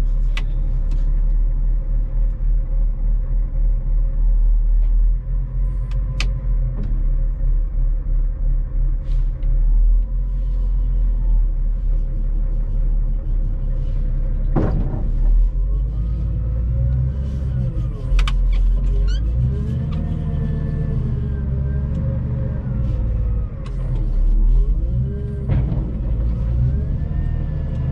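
Volvo L60E wheel loader's diesel engine running, heard from inside the cab, revving up and down in the second half as the loader works its forks and pulls away. A few sharp knocks, the loudest about halfway through.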